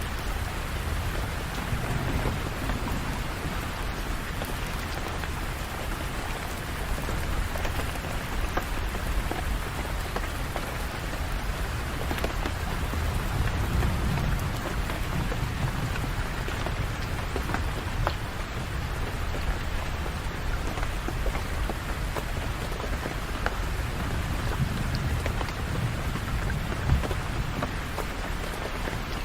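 Steady heavy rain pattering on surfaces, with scattered drop ticks. Low rumbles of distant thunder swell up three times.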